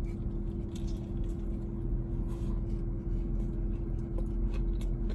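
Steady low hum inside a car, with a constant tone running under it. Over it come light, scattered crackles and clicks from handling and biting into a crunchy Cheetos fried-chicken sandwich.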